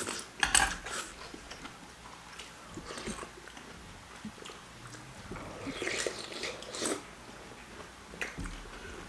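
A person chewing and biting food close to the microphone, with louder clusters of eating sounds about half a second in and again around six to seven seconds.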